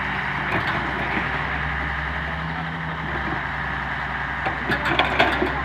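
Heavy diesel engine running steadily at low revs, with a short burst of knocks and rattles about four and a half seconds in.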